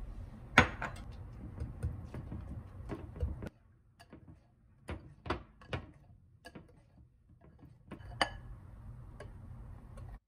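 Wire whisk clinking and tapping against a glass mixing bowl while beating pancake batter, in irregular light taps. A sharper knock comes about half a second in, and another near the end.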